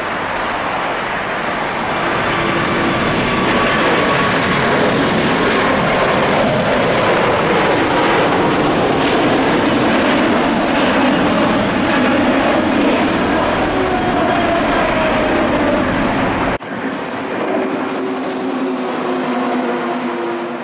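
Airbus A380's four Rolls-Royce Trent 900 engines at take-off thrust: a loud jet roar with whining tones that slide down in pitch as the aircraft climbs past. Near the end the sound cuts off abruptly and resumes slightly quieter, with steadier engine tones.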